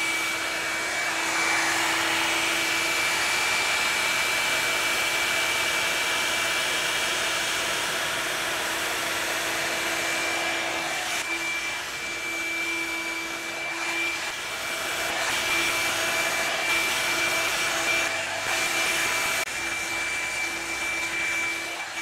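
Revlon One-Step Volumizer hot-air brush running on its low heat and airflow setting: a steady rush of blown air with a thin high whine and a lower hum from the motor.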